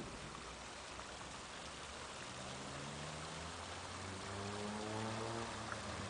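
Water of a rock fountain welling over the rim and splashing down its sides into a shallow pool, a steady splashing. About two seconds in, a low pitched hum of unclear source joins and steps higher around four seconds.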